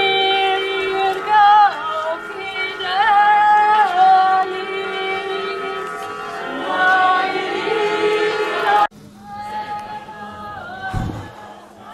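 A group of people in a religious procession singing a hymn together. The singing is loud, then drops abruptly about nine seconds in and carries on fainter. A brief low rumble comes soon after.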